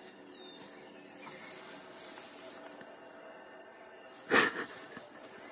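Outdoor background with small birds chirping in short high notes, and one brief loud noise about four and a half seconds in.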